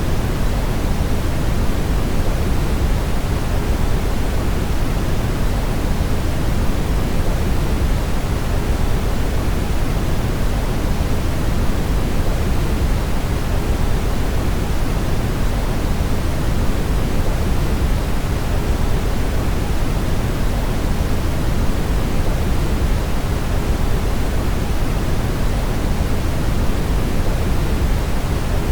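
Brown noise: a steady, even rushing hiss, deep and bass-heavy, with no changes or events.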